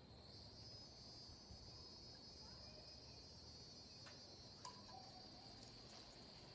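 Faint, steady high-pitched insect chorus trilling without pause, with a single light click about four and a half seconds in.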